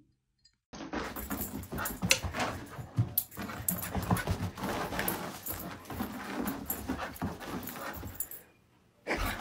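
A dog panting hard as it bounds about on carpet, with many sharp thumps and light jingles mixed in. It starts after a brief silence and stops about a second before the end.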